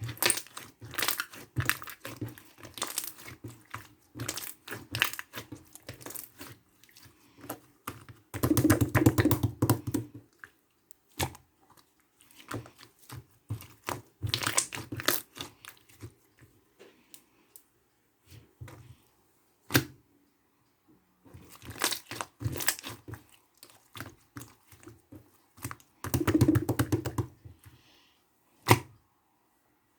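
Slime being squished, stretched and poked by hand, giving irregular crackling and clicking pops of trapped air, with two longer, louder squelching spells about nine seconds in and again near the end.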